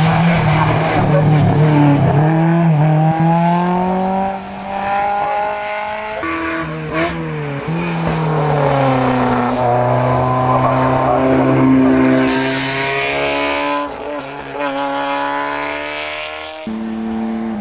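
Historic racing car engines accelerating hard uphill one after another, their pitch climbing under load and dropping between rises; the engine note changes abruptly twice as a different car takes over.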